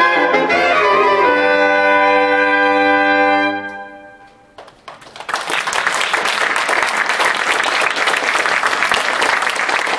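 Saxophone quartet playing the closing bars and holding a final chord that dies away about four seconds in. After a brief pause, the audience breaks into applause that carries on.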